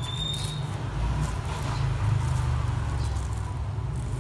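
A steady low rumble that grows louder about a second in, with a faint steady hum above it and a brief high chirp at the very start.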